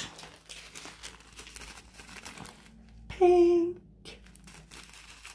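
Small plastic zip-lock bags of diamond painting drills crinkling faintly as they are handled.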